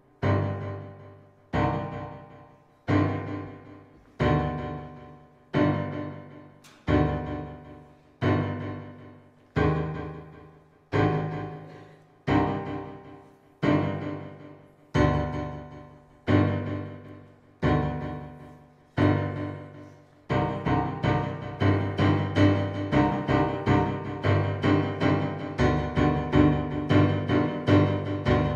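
Piano music: a low chord struck about every second and a half and left to ring away. About two-thirds of the way through it changes to quick repeated notes, about three a second, over a held low bass.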